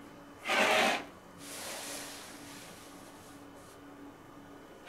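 Rotary cutter blade rolling along an acrylic ruler and slicing through the basted fabric layers onto the cutting mat: a short loud rasp under a second in, then a longer, softer rasping cut lasting about two seconds, and another cut starting right at the end.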